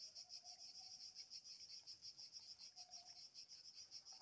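Faint, steady chirping of summer insects such as crickets: a high pulsing trill, about six or seven pulses a second, that carries on without a break.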